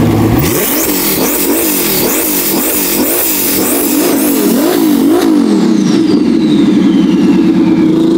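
Twin-turbocharged Ferrari F12 V12 engine revving, its pitch rising and falling rapidly again and again for about five seconds. It then runs steadily while a high whistle falls in pitch, and begins to climb again near the end.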